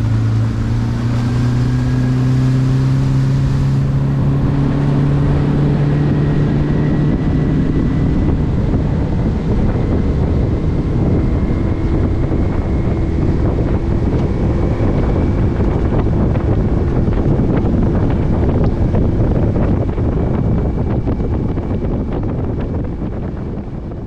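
Outboard motor of a small fishing boat running under way, its pitch climbing over the first few seconds as it picks up speed and then holding steady, with wind rushing over the microphone. The sound fades out near the end.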